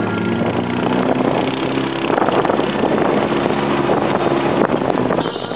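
ATV engine running while riding along a dirt road, a steady drone whose pitch shifts a little with the throttle, with wind noise on the microphone.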